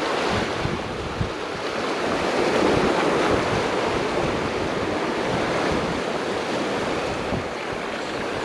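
Ocean surf washing in, swelling to its loudest about three seconds in and then easing, with wind buffeting the microphone.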